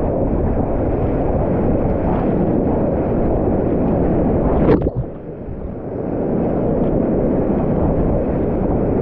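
Whitewater rapids rushing and splashing around a kayak, a deep steady roar. About halfway through comes one sharp splash, after which the sound drops and dulls for about a second before the roar returns.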